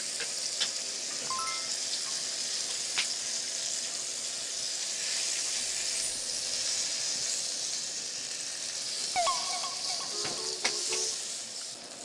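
Beef rolls wrapped around vegetables sizzling in a grill pan on a portable gas stove, a steady frying hiss, with a few light clicks.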